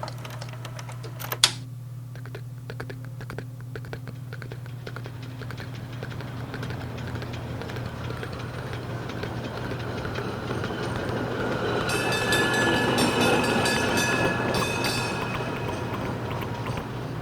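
A passing vehicle, heard as a rumble that swells to its loudest about twelve seconds in, with rapid rattling clicks and a few steady high tones at the peak, then fades. A steady low hum runs underneath.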